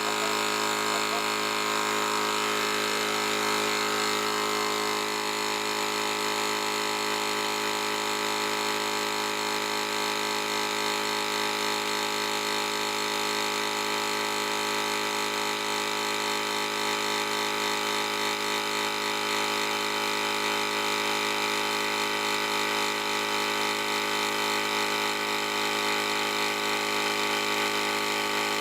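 Thumper Max dual 12-volt air compressor running steadily under load, pumping air into a flat car tyre.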